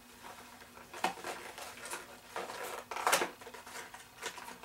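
Airsoft magazines being handled and turned over in the hands: a few light clicks and clacks, with a longer, louder clatter about three seconds in.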